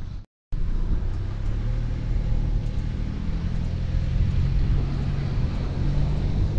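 A car driving slowly: a steady low engine hum and tyre rumble with wind buffeting the microphone, heard from a camera mounted on the outside of the car. The sound cuts out briefly just after the start, then resumes.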